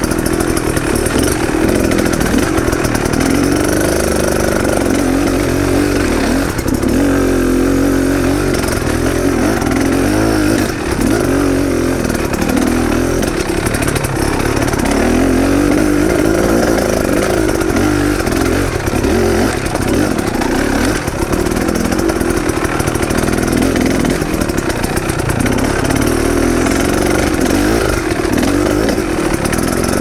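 Dirt bike engine running hard on a rough trail, its revs rising and falling constantly with the throttle.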